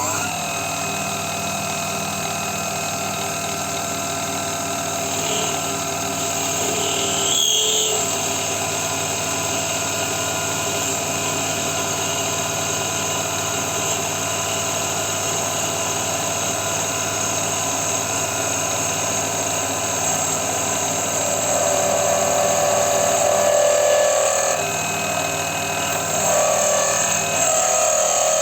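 Small benchtop metal lathe running, its motor and drive giving a steady, multi-toned machine hum. A brief change in the sound comes about a third of the way in, and an extra, rougher mid-pitched sound swells and fades over the last quarter.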